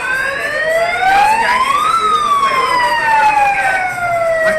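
Emergency vehicle siren wailing: one slow rise in pitch peaking about two seconds in, then a long, slow fall.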